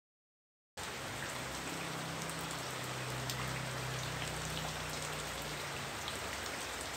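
Rain falling steadily, an even hiss with scattered drop ticks, starting suddenly about a second in.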